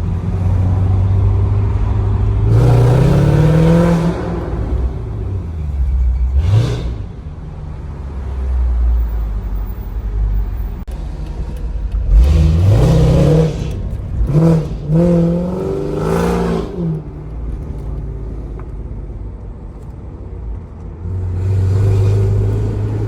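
Mercedes SL55 AMG's supercharged M113K V8 idling through a custom Corsa exhaust and being revved several times: a long rev, a short blip, another rev, then a quick run of blips before it settles back to idle.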